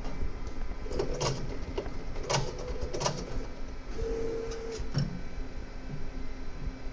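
Creality K2 Plus 3D printer running, with several sharp clicks in the first half and a short steady squeak-like tone about four seconds in. The printer has squeaking noises after about 250 hours of use.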